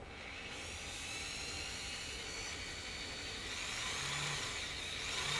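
Corded electric drill starting up and running with a steady high whine, its bit pressed against hardwood, the pitch wavering from about halfway in as the load changes. The drill is set in reverse, so the bit is hardly cutting into the wood.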